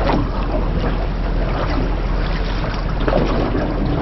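Steady wind noise on the microphone over the low, constant hum of a small boat's motor and moving water.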